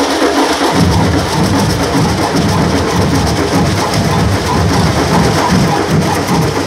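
Large Afro-Brazilian percussion group of drums and hand percussion playing a steady, driving rhythm together, loud and dense. The deep drums come in fully less than a second in.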